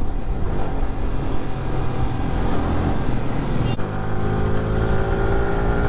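Sport motorcycle engine running as the bike is ridden. About four seconds in, after a short click, the engine note climbs steadily as it accelerates.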